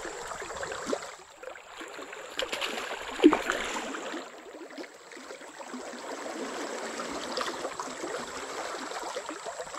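Fast river current rushing past the bank, with splashes from a hooked hampala thrashing at the surface; the sharpest splash comes about three seconds in.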